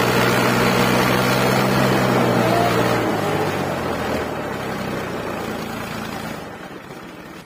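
Farm tractor's diesel engine labouring at high revs under the heavy load of a sugarcane trolley. About three seconds in, the engine note drops and fades away.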